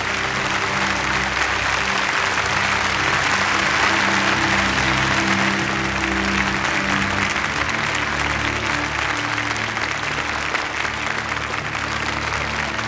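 Audience applauding steadily, with background music of held low notes under the clapping.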